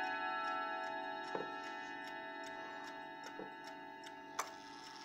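Howard Miller Thomas Tompion triple-chime mantel clock: the last notes of a chime on its rods ringing on and slowly fading while the movement ticks steadily. There is one sharper click near the end.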